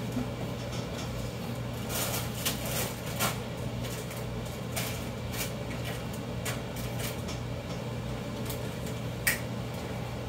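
Kitchen handling sounds: scattered light clicks and knocks, the sort made by cupboards and utensils being handled. A steady low hum runs underneath.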